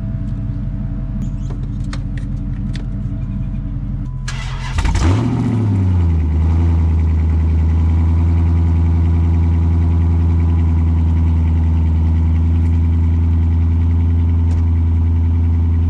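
A car engine started off a jump box in the cold: it catches about four and a half seconds in with a short rev that falls back, then settles into a steady idle. A steady low hum runs before it fires.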